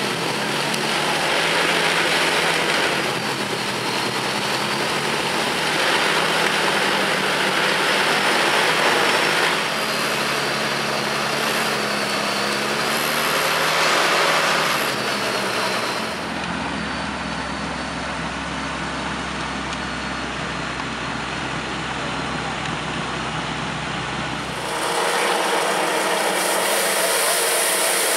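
Holder compact tractor's diesel engine running under load while its front snow blower throws snow, the rushing noise swelling and easing several times. About three seconds before the end the sound changes to the tractor driving its rotary sweeper brush over pavement.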